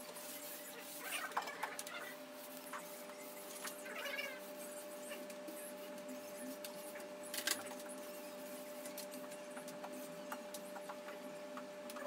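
Paint roller on an extension pole rolling emulsion paint across a smooth plaster wall, with soft tacky rubbing and occasional squeaks from the roller frame. A steady hum runs underneath.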